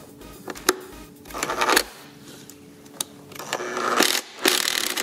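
Cordless impact driver with an 8 mm socket on an extension, running three times in short bursts as it loosens throttle body bolts. A couple of single sharp clicks come in between.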